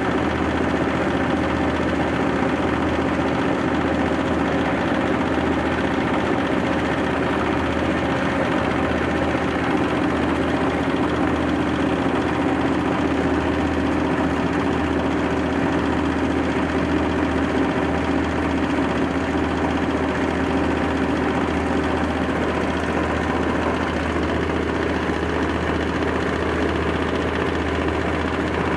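Rice husk grinding machine running steadily under load, milling husk into fine bran that pours from its chute.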